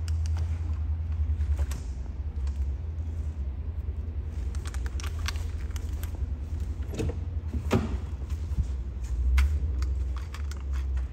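A steady low rumble, with scattered light clicks and handling noises over it. Near the end comes a sharper click as a car door is unlatched and swung open.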